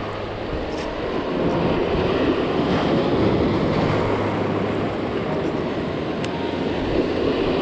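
Sea surf breaking and washing over shoreline rocks close by, a steady foamy rushing that swells and eases.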